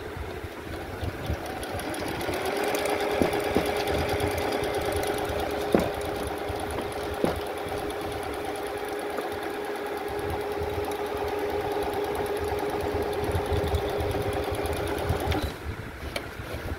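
Singer computerized sewing machine stitching: its motor and needle run at a steady, rapid pace, coming up to speed about two seconds in and stopping abruptly near the end. Two sharp clicks sound partway through.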